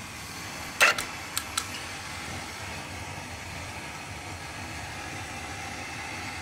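Four short clicks about a second in, the first the loudest, as the motorcycle landing gear is switched into motion. Then only a steady, even background hum like a fan.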